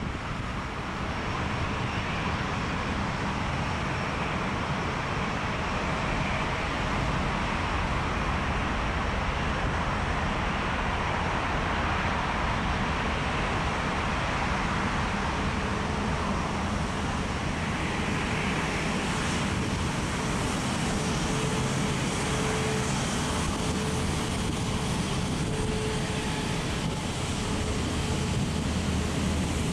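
Jet engines of a four-engine Airbus A340 running at taxi power as it turns on the runway: a steady rush, with a faint whine coming in during the second half.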